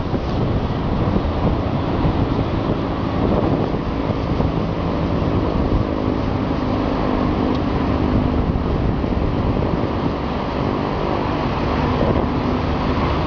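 Wind buffeting the microphone of a kite-borne camera: loud, steady, gusting noise, with a faint hum showing through in the middle.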